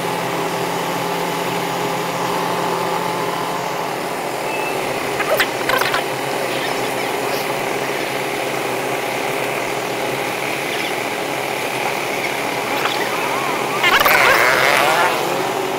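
Motorcycle engines idling steadily in a slow queue of bikes, heard from the rider's own machine. A short, louder burst of wavering sound stands out near the end.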